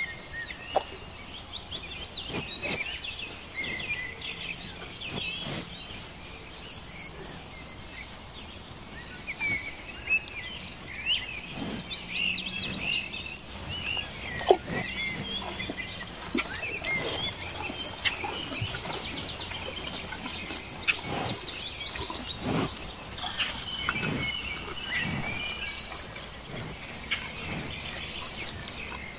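Outdoor ambience of many small birds chirping and insects, with a high hiss that drops out and returns a few times and scattered sharp clicks.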